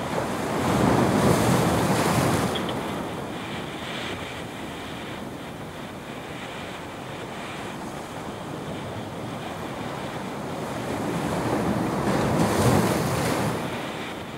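Ocean surf breaking and washing over a rock ledge, swelling loudly twice, about a second in and again near the end, with wind buffeting the microphone.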